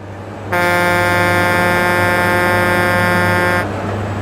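Truck air horn sounding one long, steady, blaring blast of about three seconds, over a low steady rumble that carries on after the horn stops.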